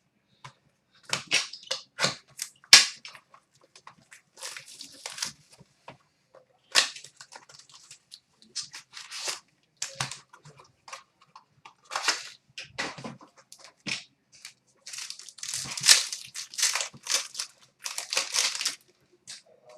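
Hockey card pack and cards being handled: irregular sharp crackles and crinkles of the foil pack wrapper and cards, with longer rustling stretches about four seconds in and again near the end.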